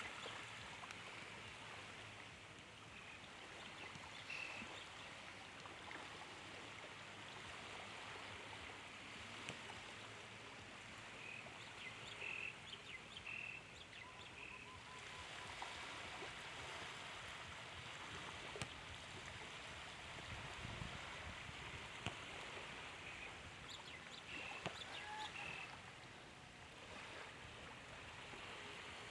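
Faint, steady wash of gentle sea waves on a beach, with a few short high bird chirps scattered through it.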